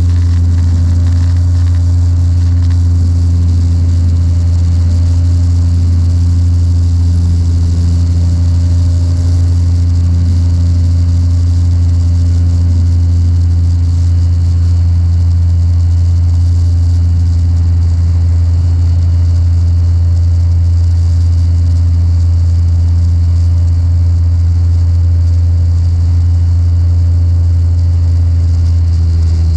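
Magni M24 gyroplane in cruise flight, heard from inside the cockpit: the engine and pusher propeller give a steady, loud, deep drone, with a hiss of rushing air over it.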